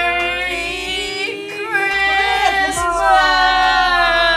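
Singing in long held notes, with a wavering break about a second and a half in.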